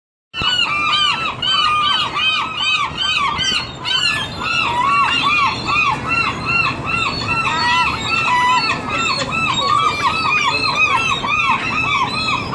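A flock of seagulls calling continuously while feeding: many short, arched, squealing calls overlapping in a dense chorus, several a second.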